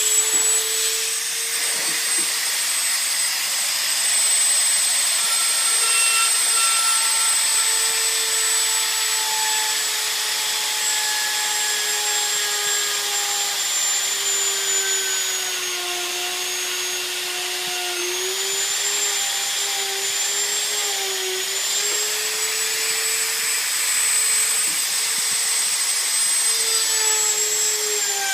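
Electric drill with a 1/8-inch bit running steadily while boring a small pressure-port hole in a rocket airframe tube. Its motor whine drops in pitch a few times as the bit loads up, most clearly about halfway through, then picks back up.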